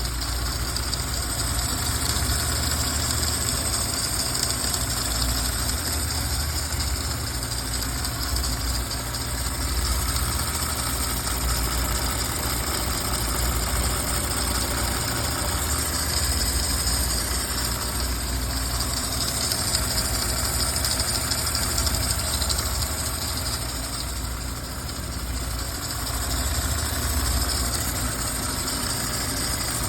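Audi A6 3.0-litre engine idling steadily with the noise the car is being checked for. Coolant is leaking from the water pump vacuum solenoid valve onto the alternator belt.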